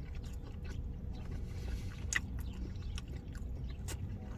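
Quiet chewing with a few soft mouth clicks over a low, steady rumble.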